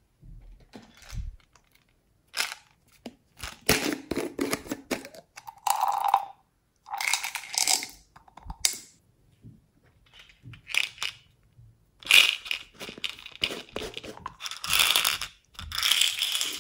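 Slime, foam beads and crumbs being poured and sprinkled from plastic cups into a glass dish of slime: irregular crackling and rustling bursts with small clicks.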